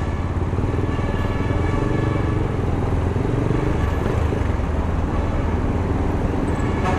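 Motorcycle engine running steadily at low speed, heard from the rider's seat, over a steady hiss of road noise.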